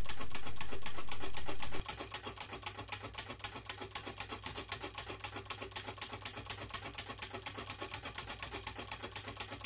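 Rapid, even clicking of the 12-volt solenoids and their relays driving the V-gate magnet motor's spinning wheel, about six or seven clicks a second at around 400 RPM, over a faint low hum.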